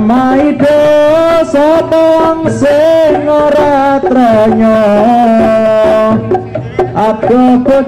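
Javanese folk music: a loud, held melody line that slides and wavers in pitch, over regular hand-drum strokes.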